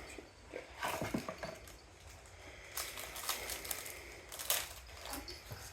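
Trading cards and their foil pack being handled: light rustling and crinkling with a few soft taps, and a sharper tick about four and a half seconds in.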